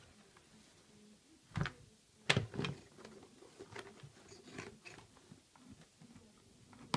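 Hard plastic knocks and clicks as the bag-compartment lid of a Vorwerk Kobold 140/150 vacuum cleaner is lowered into place and pressed shut: two louder knocks about one and a half and two and a half seconds in, then a run of lighter clicks.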